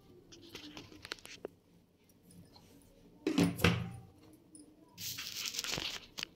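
Handling noise close to the microphone: a few light clicks, then two rustling, scraping bursts about three and five seconds in, the first the louder.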